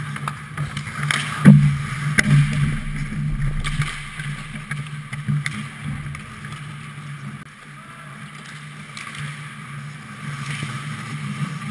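Ice hockey play heard at the goal: sharp clacks of sticks and puck, the loudest about one and a half seconds in and a few more over the next few seconds, over a steady low hum.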